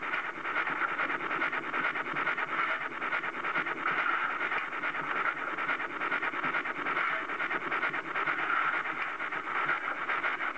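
Steam locomotive running, a steady, rapid chuffing exhaust beat with hissing steam.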